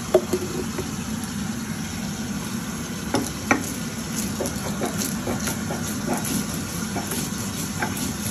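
Stone roller of a shil-nora grinding stone knocking down onto the slab a few times, then rolling back and forth over mustard and poppy seeds with short grinding strokes about twice a second. A steady low hum sits under it.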